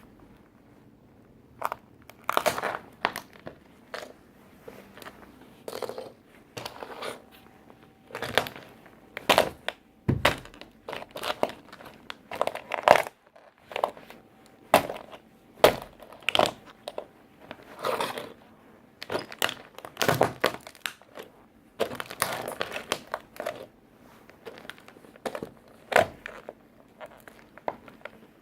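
Work boots stomping on a toy tractor, crushing it: a string of irregular thuds with crunching and crackling, about one stomp a second.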